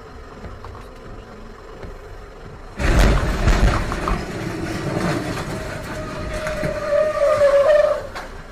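A tractor-trailer speeding up the right shoulder past a slow-moving truck: a sudden loud rush of engine and tyre noise about three seconds in, with a steady high tone over it for the last couple of seconds before it cuts off.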